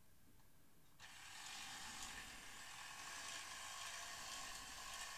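A faint, steady hiss that starts suddenly about a second in.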